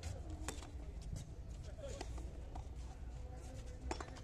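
A few sharp smacks of a frontón ball off the wall and court, the clearest about half a second in and near the end, over a steady low outdoor rumble with faint voices.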